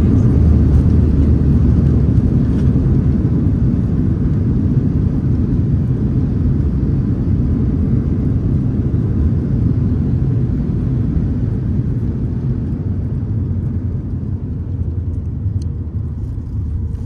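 Cabin rumble of a Boeing 737 MAX 8 decelerating on the runway just after landing, with ground spoilers up: a deep, steady rumble that slowly fades as the jet slows.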